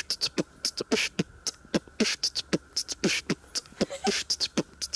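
Human beatboxing: a quick, steady rhythm of mouth-made kick-drum thumps alternating with sharp, hissing snare and hi-hat sounds.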